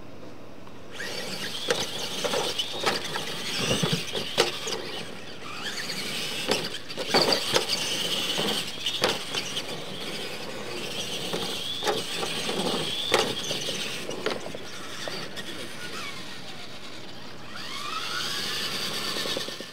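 Radio-controlled monster trucks racing on dirt: the electric motors and gears whine high, the pitch rising and falling with the throttle, starting about a second in. Sharp knocks and clatters come through it, and near the end there is a rising whine.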